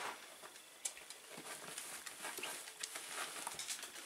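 Shetland sheepdogs' claws ticking on a wooden floor in light, irregular taps as the dogs move about.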